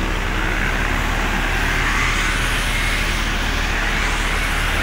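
Steady roadside traffic noise: engines and tyres of passing cars, motorbikes and buses, rising and falling slightly as vehicles go by.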